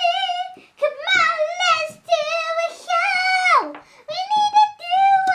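A child's high voice singing wordless held notes in short phrases, several sliding up or down in pitch.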